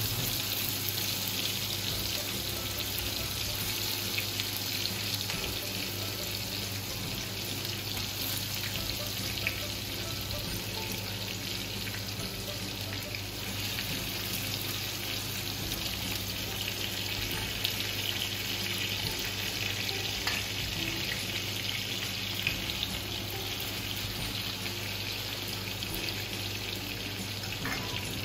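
Mutton chops sizzling in oil on a flat iron tawa over a low gas flame: a steady frying hiss with a few small pops.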